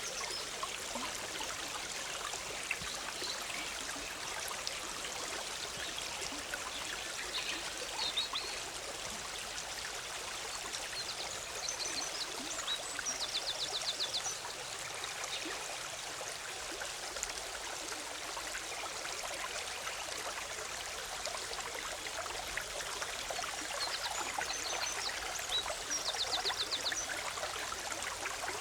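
Forest stream bubbling steadily. A small songbird twice sings a short high phrase that ends in a fast trill, about twelve seconds in and again near the end.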